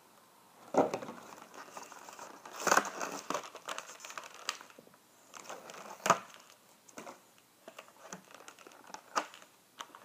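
Clear plastic packaging of a toy figure crinkling and crackling as it is handled and pulled apart, with irregular clicks and a few sharper plastic snaps: about a second in, near three seconds and around six seconds.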